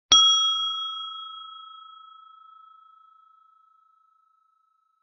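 Small brass bell struck once, ringing with a clear tone and a few higher overtones that die away over about four seconds, the higher ones fading first.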